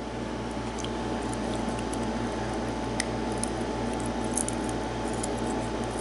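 Faint small metallic ticks and scrapes of steel tweezers working in a brass padlock's pin chambers to pick out pins, the clearest tick about halfway through. Under them is a steady low hum.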